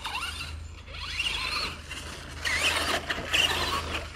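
Traxxas E-Maxx RC monster truck's 775 brushed motor and geartrain whining as it is driven across grass. The whine rises in pitch in several throttle bursts.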